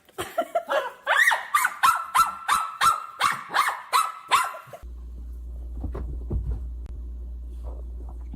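An animal honking over and over, about three loud calls a second, which stop abruptly a little past the middle. A steady low hum follows, with a few faint knocks.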